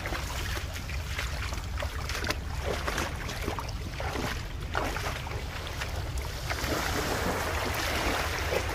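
A person wading through shallow seawater in chest waders: irregular splashing and sloshing strokes, denser near the end, over a steady low rumble of wind on the microphone.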